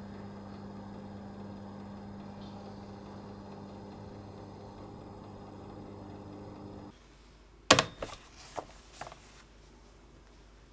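Convection oven's fan running with a steady hum, which stops about seven seconds in. Then one sharp metallic clack and three lighter knocks as the metal baking tray is set down on a wire cooling rack.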